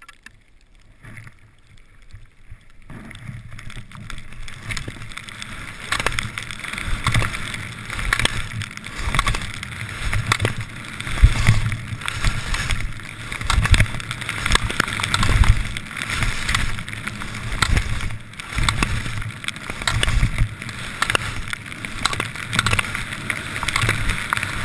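Alpine skis carving and scraping over snow through a run of quick slalom turns, a surge of swishing about every second and a half. Quiet at first, it builds over the first few seconds as the skier picks up speed.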